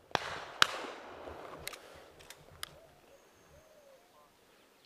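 Two shotgun shots about half a second apart, the second the louder, each trailing off, followed by a few sharp metallic clicks of the gun's action. Faint cooing bird calls come through in the middle.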